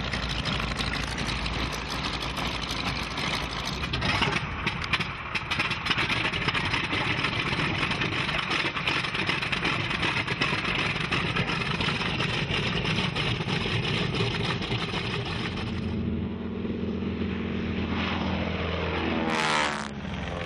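Radial piston engines of vintage propeller warplanes running as they taxi, among them a twin-engine B-25 Mitchell bomber. Near the end a propeller plane passes low, its engine note sweeping as it goes by.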